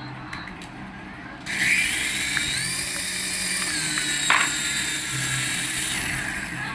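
A small electric motor in a battery-powered toy whirring at speed. It starts about a second and a half in with a brief rising whine, runs steadily, and fades near the end.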